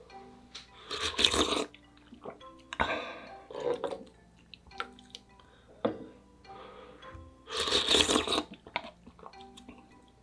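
Close-miked eating of spicy ramyeon noodles with soft tofu: bursts of slurping and chewing, the loudest about a second in and again near the end, with shorter ones in between. Faint background music underneath.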